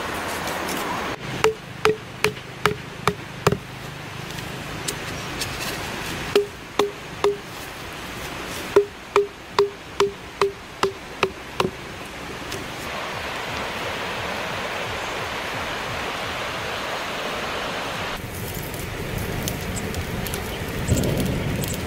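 Green bamboo being chopped: three runs of sharp knocks with a short hollow ring, two to three a second, the longest near the middle. After them a steady rushing hiss.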